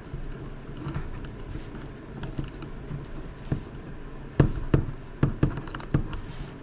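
Light handling noise, then from about four seconds in a quick series of about six sharp clicks and taps from small metal mount parts and an Allen wrench as a bolt is taken out.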